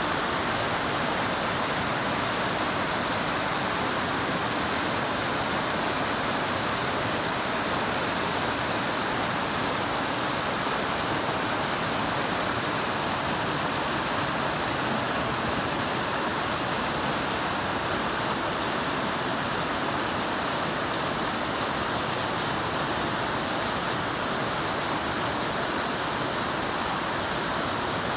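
South Fork Snoqualmie River in flood after heavy rain, rapids rushing over rocks in a steady, unbroken whitewater rush.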